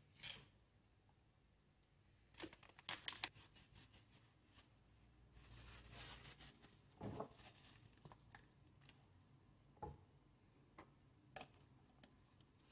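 Faint rustling and crumpling of kitchen roll with a few scattered small metal clicks, the sharpest click right at the start: paper towel on a socket extender being handled while wiping grease out of an air pistol's cylinder.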